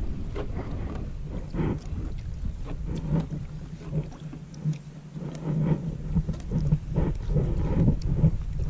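Small fishing boat at sea: wind buffeting the microphone in irregular gusts over a steady low hum, with a few faint clicks.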